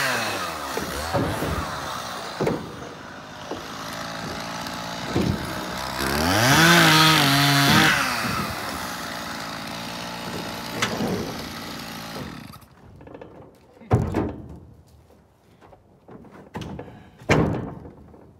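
Chainsaw running at idle, revved up once for about two seconds, then shut off. After that come a few sharp knocks, like wood pieces being handled.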